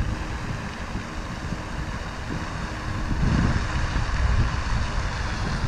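Wind buffeting the microphone, a steady rushing noise with gusty low rumble that swells a little about halfway through.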